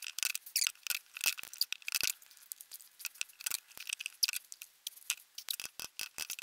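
Hand tools (a chisel and a thin pick) scraping and picking at hardened carbon-fibre resin to break it out of a stuck mould. The sound is a quick, irregular stream of sharp clicks, small cracks and scrapes.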